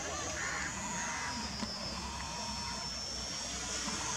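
Electric motor and propeller of a small RC P-51 Mustang warbird in flight: a thin high whine that sags a little in pitch, holds, then climbs again near the end as the throttle changes.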